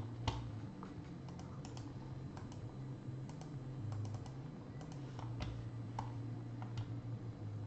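Scattered clicks from a computer keyboard and mouse, fairly faint, over a low steady hum.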